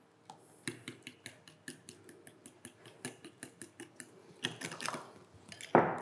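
Spoon clicking and scraping against the sides of a glass mixing bowl as cocoa powder is stirred into cake batter: a quick run of light clicks, a few a second, louder in the last second and a half.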